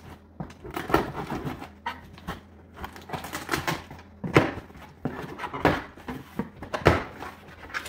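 Cardboard shipping carton being opened by hand: its flaps and tape rustle and scrape irregularly. Three sharp knocks come about four, five and a half and seven seconds in.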